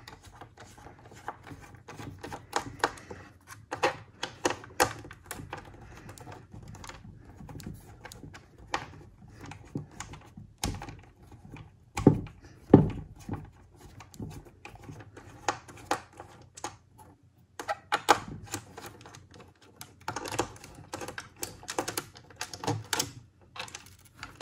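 Irregular small clicks and taps of a T10 screwdriver working screws out of the metal hard-drive brackets, with the screws and brackets set down on a hard surface. A few louder knocks come about halfway through.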